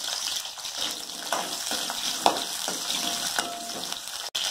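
Small onions (shallots) sizzling in hot oil in a metal kadai, stirred with a metal spoon that clinks and scrapes against the pan a few times, the sharpest clink about two seconds in.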